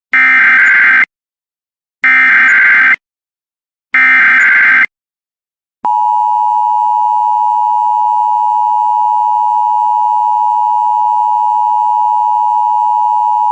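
Emergency Alert System SAME header: three one-second bursts of warbling digital data tones about a second apart, then the steady two-tone EAS attention signal for about eight seconds, opening a weekly test alert.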